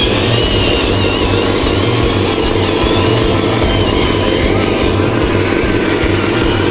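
Radio-controlled model truck running: a steady engine-like drone with a high whine that wavers in pitch.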